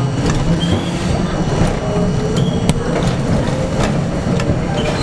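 R42 subway car running on elevated track, heard from inside the front car. Wheels click over rail joints a number of times, with short high squeals on the curve, and a low whine rises slowly as the train picks up speed.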